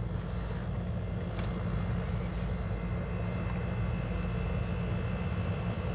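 A steady low engine rumble, with a faint thin high whine joining about three seconds in.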